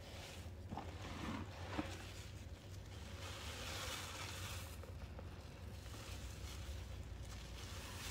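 Sponges squeezed and worked by hand in a wet baking soda and soap-flake paste, giving a soft, uneven crackle that swells about three to five seconds in, over a low steady hum.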